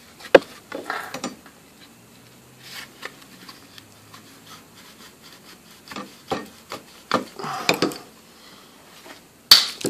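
Gloved hands prying at and handling a plastic fuel pump module: scattered rubbing and scraping of plastic, with a sharp click about a third of a second in and a loud knock near the end.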